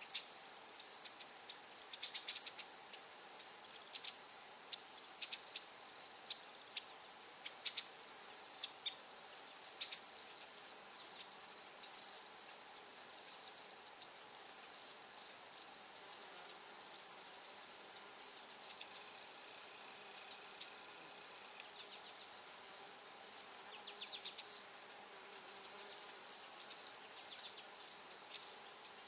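A steady chorus of singing insects: an unbroken high-pitched trill at two pitches, one above the other.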